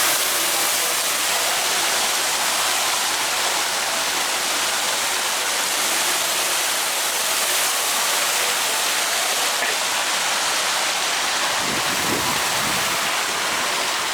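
Steady rushing hiss of splashing water from a large outdoor fountain, with a brief low rumble near the end.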